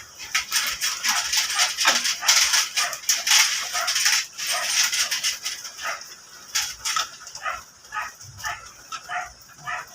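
A dog barking and yipping in short repeated calls, most evenly in the second half. Metallic clinks of engine parts being handled come in the first half.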